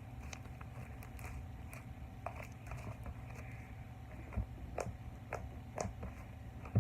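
Sticky butter slime being handled and stretched, giving off scattered, irregular soft clicks and pops.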